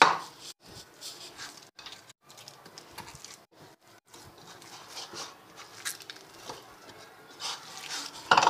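Hands kneading stiff semolina dough that has just had a little water added, to soften it: irregular soft squishing and patting, with a louder knock at the very start and another near the end.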